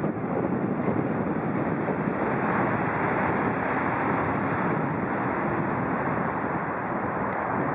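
Steady rush of moving river water mixed with wind buffeting the microphone.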